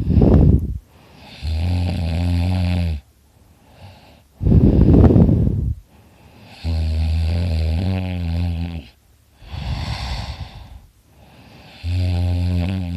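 A man snoring loudly in deep sleep, about three breaths in regular cycle. Each breath is a rough, noisy snort-like breath followed by a long, low, pitched snore, repeating roughly every five seconds.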